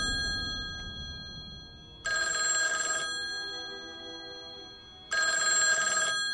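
Bell of an old rotary-dial desk telephone ringing, a ring every three seconds: the last of one ring fades at the start, and fresh rings come about two and five seconds in, each lasting about a second and dying away.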